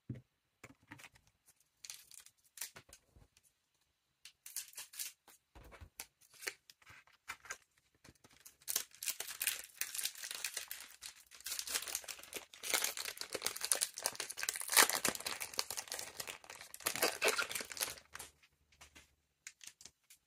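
A trading-card booster pack's foil wrapper being torn open and crinkled, a dense crackling over several seconds in the middle, with scattered small card-handling clicks before it.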